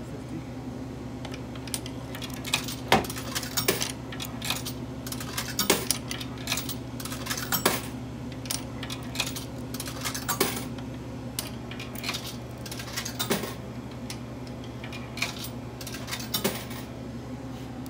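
Coins fed one after another into a drink vending machine's coin slot, each clinking as it drops through the coin mechanism, in irregular clusters of clicks that stop shortly before the end. A steady low hum runs underneath.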